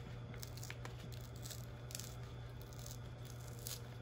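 Wrapping paper rustling and crinkling softly in a few short bursts as a gift is carefully unwrapped without tearing it.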